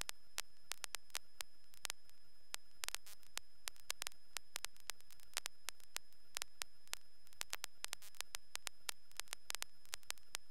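Faint steady hiss of a light aircraft's radio/intercom audio feed with no transmission, broken by irregular sharp static clicks, several a second, over a faint steady high tone.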